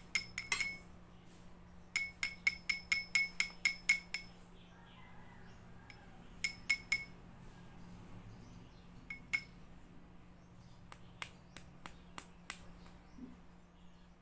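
A thin wooden stick tapping the rim of a small glass cup: light glass clinks with a short ring. They come in quick runs, a few at the start, about eight in rapid succession between two and four seconds in, then scattered pairs and a final run near the end.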